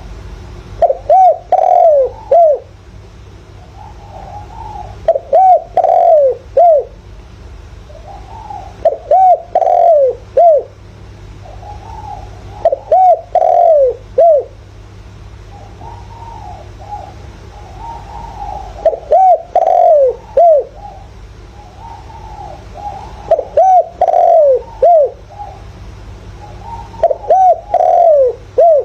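Spotted dove cooing: a phrase of three to four falling coos, repeated about every four seconds, seven times in all, with fainter cooing in between.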